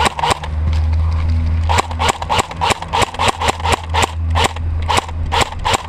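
Airsoft guns firing a quick string of single shots, about three to four a second, from around two seconds in, after a couple of shots at the start, over a steady low hum.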